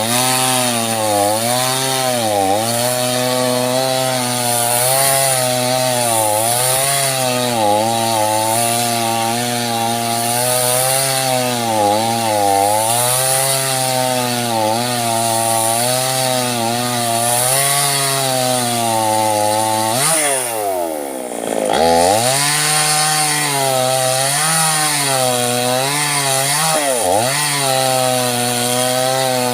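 Small two-stroke chainsaw cutting through sengon wood. The engine note sags and recovers again and again as the chain bites. About 20 seconds in, it drops away sharply and revs back up within a couple of seconds.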